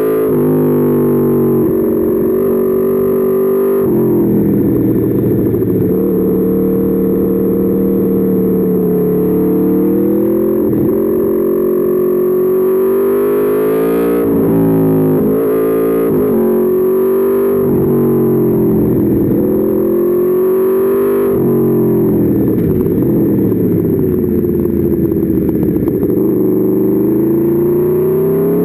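Aprilia Tuono V4's V4 engine heard onboard, revving up and falling back again and again as the bike accelerates out of corners and slows into them, with sudden drops in pitch about a third of the way in and again near three-quarters through.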